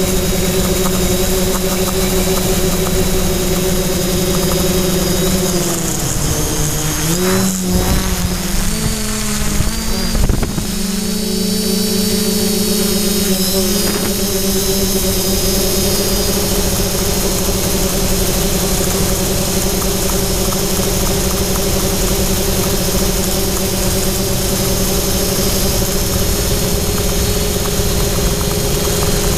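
Quadcopter's brushless motors and propellers buzzing steadily, heard from the GoPro on board. About six seconds in, the pitch drops and wavers for several seconds as the throttle changes, then settles steady again.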